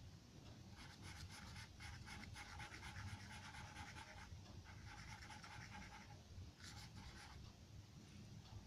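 Faint scratching of a charcoal pencil on drawing paper: quick, short shading strokes in three runs with brief pauses, over a low steady hum.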